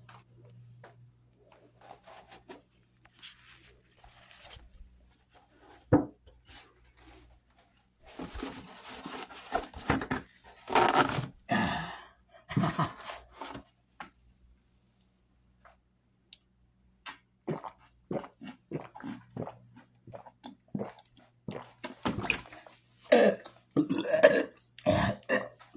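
A person drinking in gulps, then burping loudly several times near the end.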